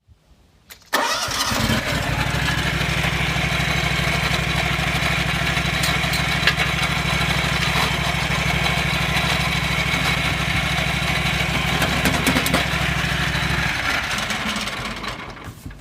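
Wright Stander stand-on mower engine starting about a second in, running steadily with a high steady whine over it, then shut off near the end. The owner takes the noise for a bad drive belt and later suspects worn idler pulley bearings.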